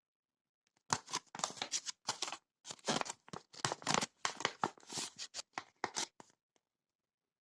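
Rustling and crinkling from something being handled, a quick run of short bursts starting about a second in and stopping about six seconds in.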